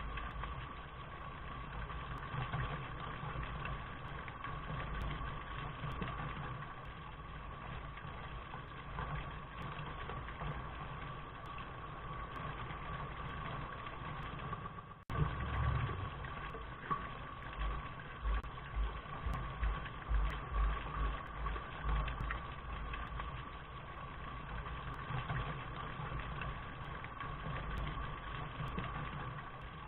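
Steady rain noise, an even hiss with a low fluttering rumble beneath it. There is a brief dropout about halfway through, after which the low rumble comes in a few louder pulses.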